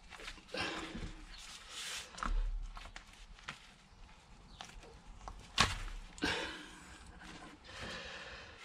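Gloved hands forcing a greasy rubber CV boot onto a driveshaft: irregular rubbing and swishing of rubber and glove, with scattered knocks and a sharp click about five and a half seconds in.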